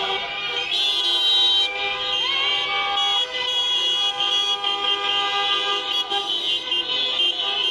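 Many car horns honking at once in a victory celebration, long held blasts of different pitches overlapping and starting and stopping.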